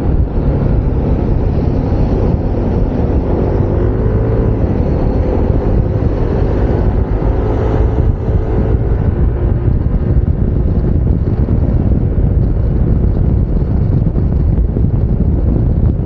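Steady wind rumble buffeting an unshielded lavalier microphone on a moving scooter, with the Yamaha NMAX 155's single-cylinder engine running underneath and its note wavering a little in the middle.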